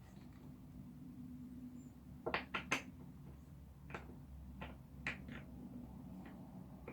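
Light clicks and knocks from chair parts being handled and fitted together, three quick ones a little over two seconds in and a few more spread through the rest, over a steady low hum.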